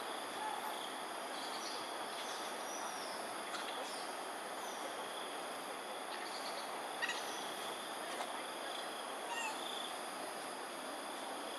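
Smooth-coated otters giving short, high chirping calls every second or two, over a steady background of insect trilling and distant hum; a sharp click about seven seconds in.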